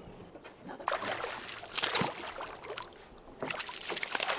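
Water splashing as a hooked fluke thrashes at the surface beside the boat, in two spells of rough splashing, the second starting about three and a half seconds in.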